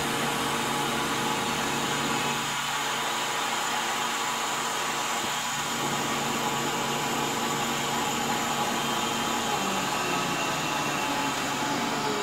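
Benchtop CNC mill running steadily, its spindle and end mill cutting around the profile of a wooden slingshot blank.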